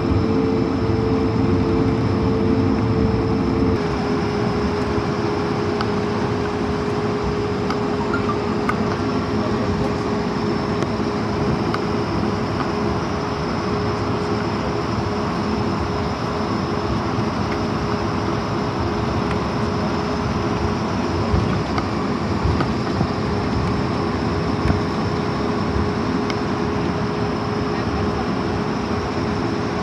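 Cabin noise inside an Airbus A220-300 taxiing after landing: a steady rush and hum from its Pratt & Whitney PW1500G geared turbofans at taxi power and the cabin air system. The hum drops slightly in pitch and level about four seconds in.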